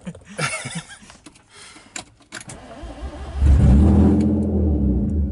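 BMW E36 325is straight-six engine started: a few small clicks, then about three seconds in the engine catches and runs steadily and loud.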